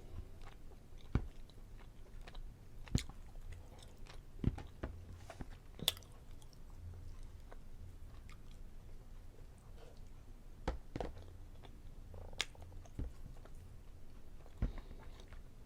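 A person chewing food close to the microphone, with short sharp mouth clicks and smacks every second or two over a faint low hum.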